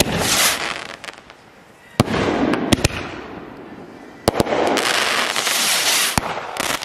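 Consumer aerial fireworks firing in sequence: a sharp bang roughly every two seconds, four in all, each followed by a loud hiss and crackle lasting a second or two.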